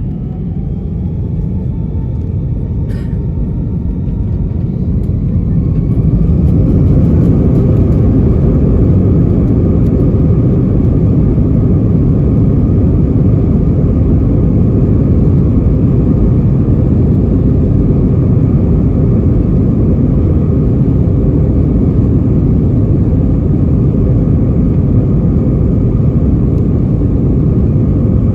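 Airbus A320's jet engines spooling up, heard from inside the cabin: a whine rises in pitch and the noise grows over the first six seconds, then settles into a loud steady rumble of takeoff power. A light click about three seconds in.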